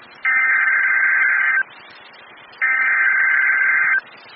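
Emergency Alert System SAME digital data bursts: two identical modem-like tone bursts about a second and a half long, a second apart, as the EAS header is sent at the start of an alert.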